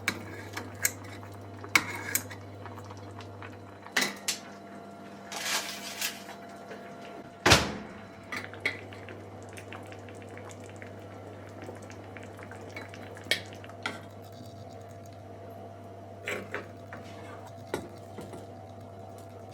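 Tableware being handled: dishes and utensils clicking and clinking as they are set down, with one louder knock about seven and a half seconds in, over a low steady hum.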